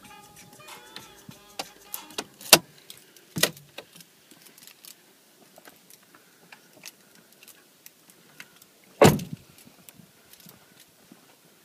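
Keys jangling and small clicks and knocks of handling inside a BMW E39 saloon, with two sharp knocks a few seconds in. A heavy thud about nine seconds in is the loudest sound: the car's door shutting.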